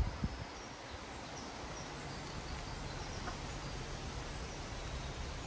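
Steady outdoor background noise, a low rumble with a hiss above it, with a few faint bird chirps and a short low thump right at the start.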